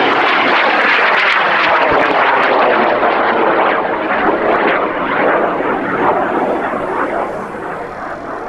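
Aerotech M750 high-power rocket motor burning as the rocket climbs: a loud, crackling roar that slowly fades over the last few seconds.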